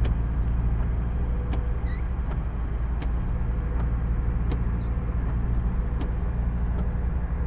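Car running steadily at road speed, heard from inside the cabin: a steady low engine and road rumble, with a few faint ticks at irregular intervals.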